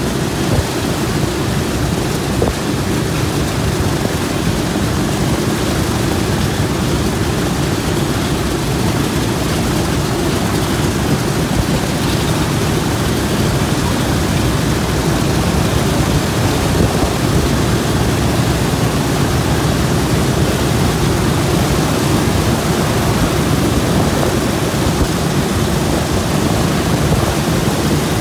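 Wright R-1820 Cyclone nine-cylinder radial engines of a B-17 Flying Fortress idling together with propellers turning: a loud, steady low rumble that does not change.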